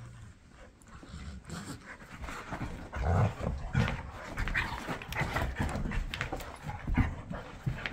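Dogs play-wrestling: panting and scuffling, with soft thumps of bodies. It grows louder about three seconds in, with one sharper bump near the end.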